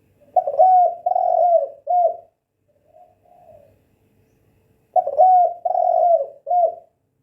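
Spotted dove cooing: two loud phrases of several coos, about four and a half seconds apart, with a softer, shorter phrase between them.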